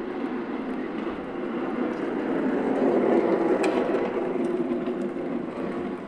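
A vehicle passing by: a steady rushing noise that swells to a peak about halfway through and fades away near the end.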